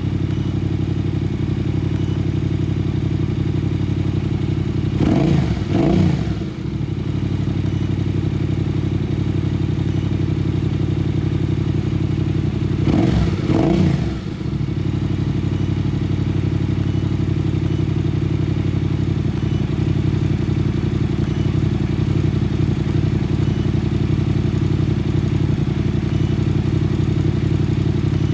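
Yamaha Ténéré motorcycle engine idling at about 1,400 rpm, with the throttle blipped twice, about five and thirteen seconds in, so the revs rise and fall back to idle.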